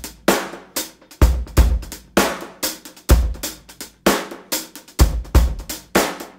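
Background music: a drum-kit beat of snare, kick drum and cymbal strikes, each ringing out between hits.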